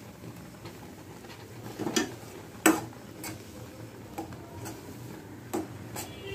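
A cooking spoon knocking and clinking against a pot: about seven scattered taps, the loudest a little under halfway through.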